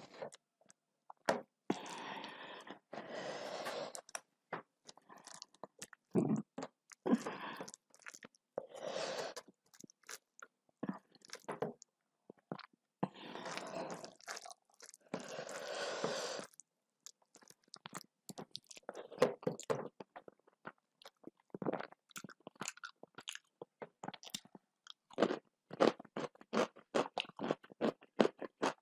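Close-up chewing of a meal of rice and dal, with wet mouth sounds. It comes in longer stretches in the first half, then turns into many short crisp crunches through the second half.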